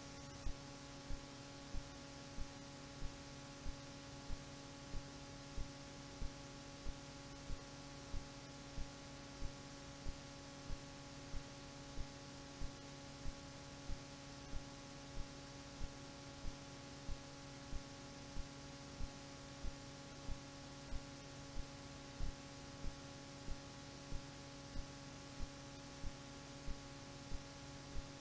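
A steady hum of several held tones over faint hiss, with a short click repeating evenly about every 0.6 seconds. No music is playing.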